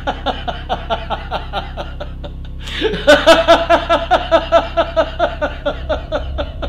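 A man laughing: quieter rhythmic chuckling that breaks into loud, hearty laughter about three seconds in.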